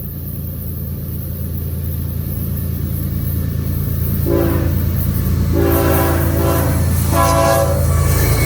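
Approaching diesel locomotive, its low engine rumble growing louder, sounding its multi-note air horn in three blasts: a short one about four seconds in, a longer one, then another short one near the end.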